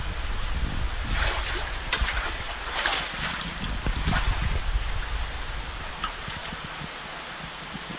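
Water splashing and sloshing as a netted helicopter catfish thrashes at the surface of its tank, with small dull knocks under it. The splashing is heaviest in the first half and settles after about five seconds.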